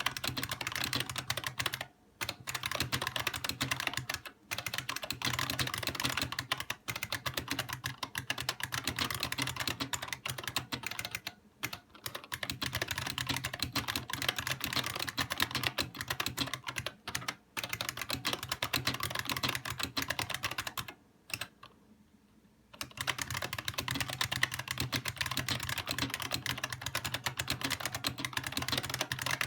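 IBM Model M Space Saving Keyboard's buckling-spring keys being typed on in fast, continuous runs of sharp clicks. There are a few brief breaks, and one longer pause of under two seconds about two-thirds of the way through.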